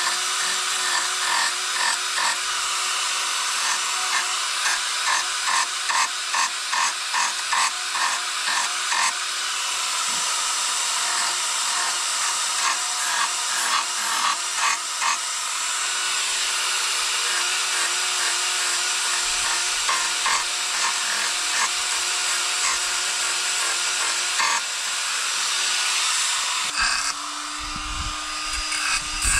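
Handheld power carving tool running and being worked against wood, shaping a carved wooden crow. Its motor whines steadily over a hiss, with quick repeated strokes of the bit on the wood, and the motor's pitch drops near the end.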